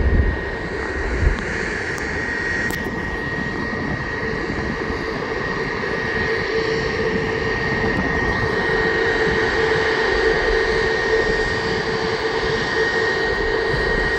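An easyJet Airbus airliner's jet engines running nearby: a steady rushing noise with a steady whine, growing slightly louder over the seconds.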